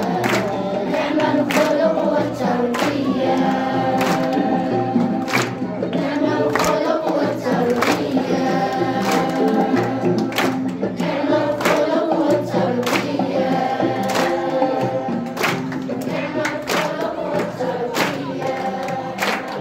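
A group of voices singing together in chorus, with frequent sharp percussive hits.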